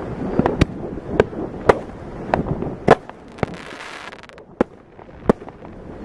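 Fireworks bursting: a string of sharp bangs at irregular intervals. A hiss runs briefly in the middle and cuts off suddenly.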